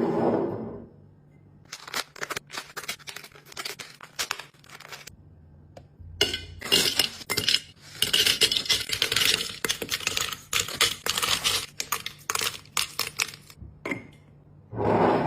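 Containers and packaging being handled: scattered clinks and knocks for the first few seconds, then a long stretch of dense crackling rustle with clicks that eases off near the end.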